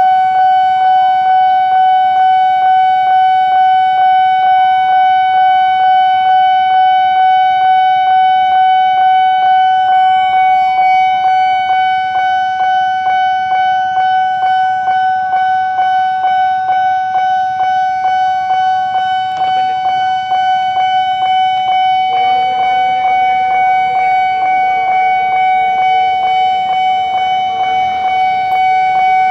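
Railway level-crossing alarm sounding continuously: a steady high electronic tone pulsing rapidly and evenly. From about two-thirds of the way in, an approaching KRL commuter electric train adds a lower, wavering tone underneath.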